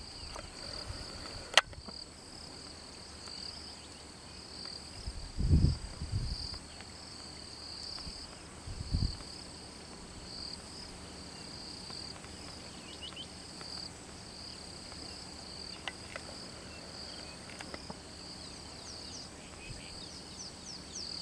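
Steady high-pitched insect chorus, pulsing slightly, with a few faint short bird chirps. A sharp click about a second and a half in and low thumps around five to six seconds and again around nine seconds stand out as the loudest sounds.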